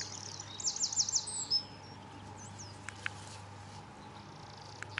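Songbird singing: a quick run of high, rapidly repeated chirping notes in the first second and a half, then a few fainter calls, with a couple of small clicks near the middle and end.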